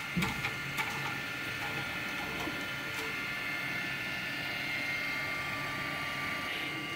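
Prima Creator 3D printer running steadily, a whine of several steady high tones, with a few light clicks in the first second as the filament cleaner is clipped onto the filament.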